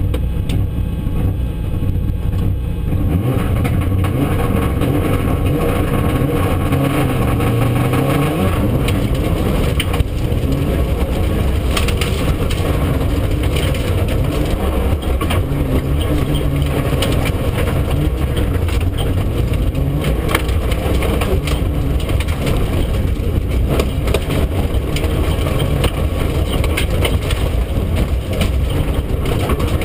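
Mitsubishi Lancer Evolution IV's turbocharged four-cylinder engine heard from inside the stripped rally car's cabin, revving hard, its pitch climbing and dropping through gear changes. From a few seconds in, gravel and stones rattle and crackle against the car's underbody as it drives flat out on a gravel road.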